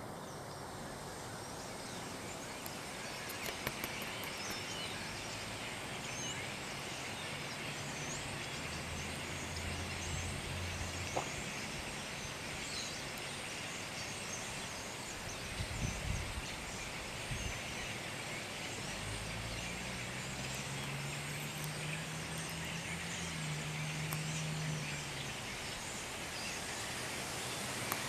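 A large flock of small birds perched in trees, with many overlapping chirps and chatters making a steady din. A low engine drone passes in the background, first briefly and then rising in the second half.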